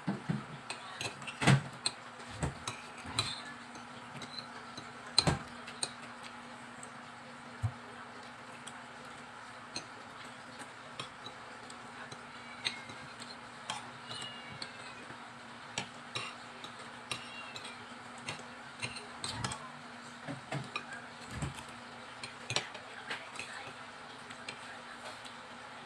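Fork and spoon clinking and scraping on a plate while eating, in irregular clicks, the two loudest about a second and a half and five seconds in.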